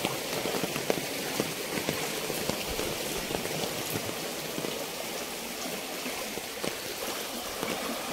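Heavy rain falling onto shallow floodwater: a steady hiss dotted with many small drop splashes.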